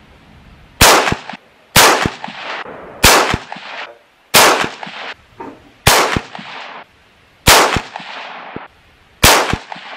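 Seven rifle shots from a bolt-action .204 Ruger, each a sharp crack with a short ringing tail, coming one to two seconds apart.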